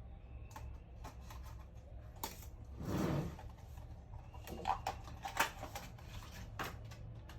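Light clicks and taps of plastic laptop parts being handled, with a louder scraping rustle about three seconds in and a run of sharper clicks after it.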